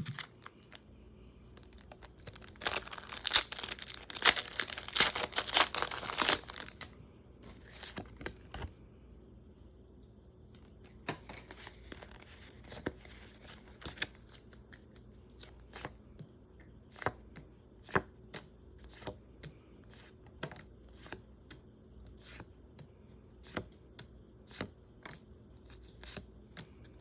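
A foil Pokémon card booster pack is torn open with a burst of crackling and crinkling, followed by more crinkling of the wrapper. Then the cards are flicked through one at a time, a light snap about once a second.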